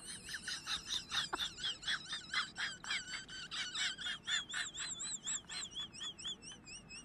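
High bird-like chirping: quick, rapidly repeated chirps, several a second, with a warbling whistled note that becomes clearer and steadier toward the end.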